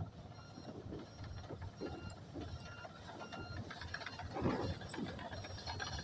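Komatsu crawler bulldozer moving on its steel tracks: the track links clank and rattle over a low diesel rumble, with a brief louder clatter past the middle.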